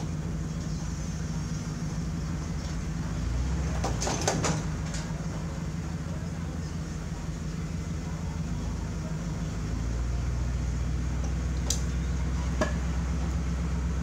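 Ford pickup truck's engine running at a steady low idle as the truck creeps forward, the note growing louder about ten seconds in. A few sharp knocks and clunks break in, a cluster about four seconds in and two more near the end.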